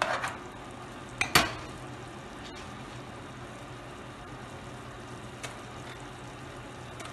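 A spoon scraping and knocking against a metal pan as chicken stew is stirred, with one louder clank about a second in. Then a steady sizzling from the stew as it heats on high flame toward a simmer.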